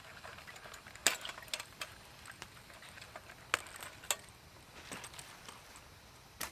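Small metal clicks and clinks of a hurricane lantern being handled, its wire frame and globe fittings knocking. A few sharp clicks stand out: about a second in, twice around three and a half to four seconds, and near the end.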